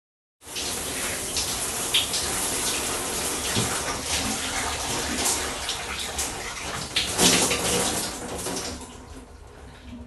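Bathroom water running steadily from a tap or shower into a basin or tub, with scattered splashes. It starts about half a second in, then tapers away near the end as the flow dies off.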